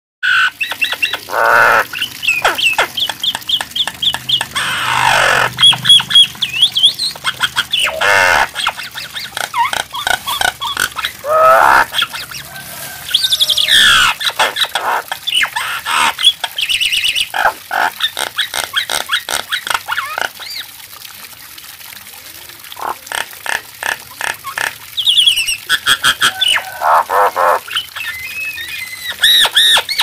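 Common myna (jalak nias) singing a loud, varied medley of rapid clicking rattles, whistled glides and harsh squawks, with a quieter lull about two-thirds of the way through.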